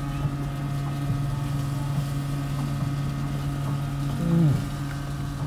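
Steady low machine hum in the room, like a fan or refrigeration unit, with a short falling 'mm' from the person chewing about four seconds in.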